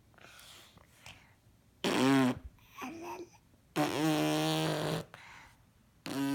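A non-verbal young girl making wordless vocal sounds: a short loud one about two seconds in, a softer one just after, a longer held one around four seconds, and another starting near the end. These are her new noises.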